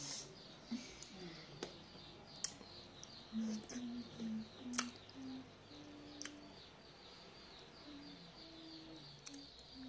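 A person eating juicy passion fruit pulp, with sharp wet mouth clicks and smacks (the loudest about halfway through) and short low hums. Small birds chirp rapidly and faintly throughout.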